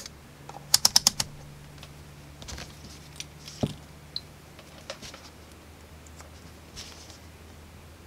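A quick run of about five sharp clicks about a second in as a multimeter's rotary selector dial is turned through its detents, then scattered light clicks and taps of test probes and an XLR cable being handled, over a faint low hum.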